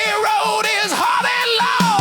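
Rock music: a loud lead line that bends and wavers in pitch, over a thinned-out low end, with no sung words.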